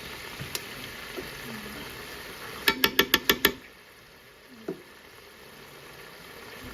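A quick run of six sharp kitchen knocks with a short ringing tone, all within under a second, over a steady low hiss that fades out just after them.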